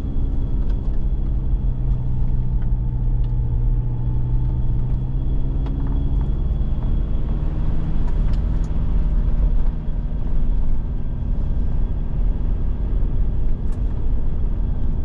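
A 4x4's engine running as it drives along a snowy gravel track, heard from inside the cab over a steady low tyre and road rumble. The engine note holds steady, then eases off a little about six seconds in.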